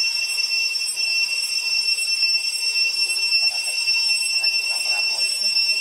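A steady, high-pitched insect drone from the trees, holding the same pitch throughout, with faint voices in the background about three to five seconds in.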